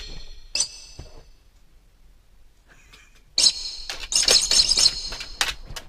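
A dog mouthing and biting at the edge of a Yamaha electronic keyboard, with sharp clicks from teeth and claws on the plastic. Two spells of high-pitched squeaky tones, a short one about half a second in and a louder, longer one from about three and a half seconds until near the end.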